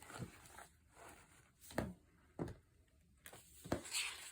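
Faint handling of a handmade paper junk journal as a page is turned: a few soft taps, then a brief rustle of paper near the end.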